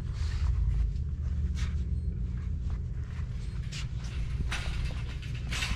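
Footsteps on a hard shop floor, short scuffs about once a second, the loudest two near the end, over a steady low rumble.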